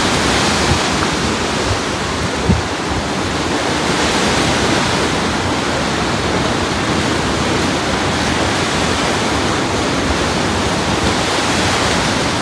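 Steady wash of small ocean waves breaking onto a sandy beach, with one brief low thump about two and a half seconds in.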